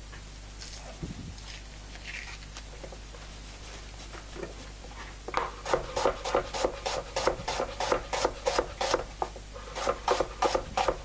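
Chef's knife slicing an onion into thin slivers on a wooden cutting board. It is quiet at first; then, about five seconds in, come fast, even cuts of about five a second, with a brief break near the end.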